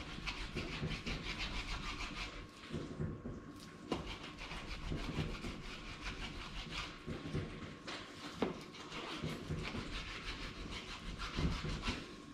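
A kitchen knife sawing back and forth through a raw salmon fillet to cut it into portions, scraping against the cutting board, with a couple of sharp clicks as the blade meets the board.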